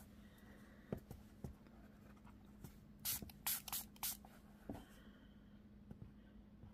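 Faint spritzes from a small pump spray bottle of water: a quick run of about five short sprays between three and four seconds in, after a few light taps of handling. The water is being misted onto oxide-inked paper to make the ink run.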